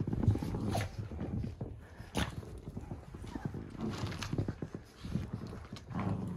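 Cavalier King Charles spaniel puppies running around on carpet, with quick, irregular soft thumps of their paws and a few sharper clicks.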